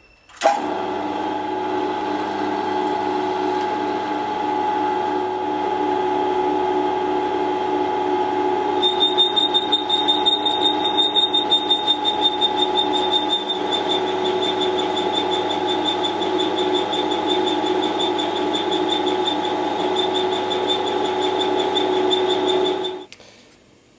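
A CNC milling machine's spindle running a boring head as it bores out a toothed pulley, a steady hum of several fixed tones. A high whine with a fast pulsing joins about nine seconds in, and the machine stops about a second before the end.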